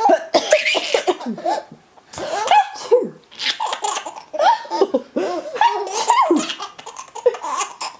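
A young child laughing in repeated short bursts of giggles, at the mother's fake sneezes and coughs. A short hissy burst comes about half a second in.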